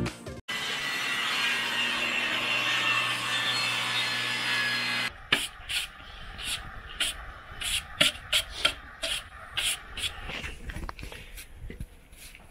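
A steady mechanical running noise for about four and a half seconds that cuts off suddenly, then a plywood board being handled on a concrete floor: irregular knocks and scrapes of wood.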